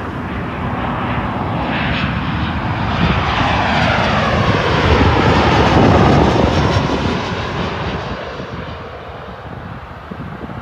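Boeing 737 jet airliner on final approach passing low overhead, its CFM56 turbofan engines at approach thrust. The jet noise swells to its loudest about halfway through, with a whine that slides down in pitch as it goes by, then fades as the plane nears touchdown.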